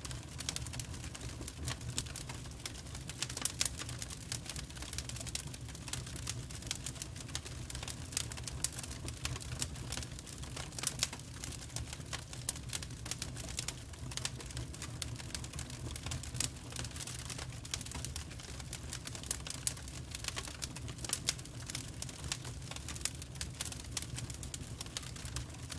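Firewood burning in a wood fire, crackling with irregular sharp snaps and pops over a steady low hum.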